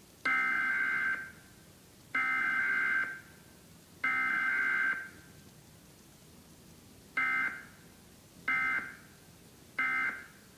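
Emergency Alert System SAME data bursts for a Required Weekly Test: three screechy, warbling digital bursts of about a second each carry the alert header. After a pause of about two seconds, three shorter bursts follow, the end-of-message code.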